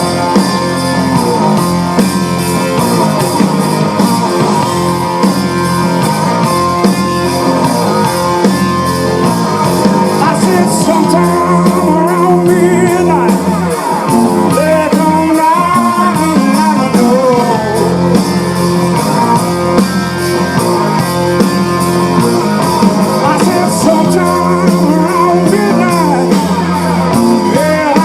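Live blues-rock band playing an instrumental passage: a lead electric guitar line bending and sliding in pitch over steady bass, drums and keys.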